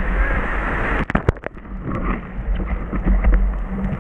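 Wind rumbling on the microphone at the beach, with the sound of the surf under it, broken about a second in by a quick cluster of sharp knocks or crackles.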